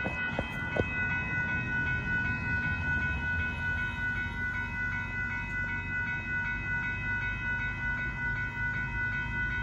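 Railroad grade-crossing warning bell ringing steadily at about three strokes a second while the crossing gates come down. A low rumble of road traffic runs underneath, and there are a few handling knocks in the first second.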